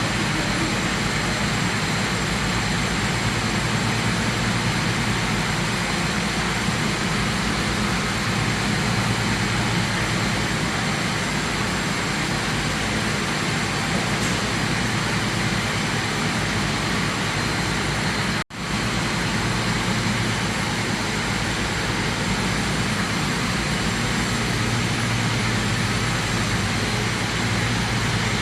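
Steady, loud machinery running: an even roar with a low hum underneath. It cuts out for an instant about two-thirds of the way through, then carries on unchanged.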